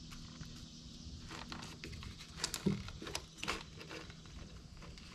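Faint rustling and a few scattered clicks of a plastic wiring harness and its connectors being handled and pulled back by hand.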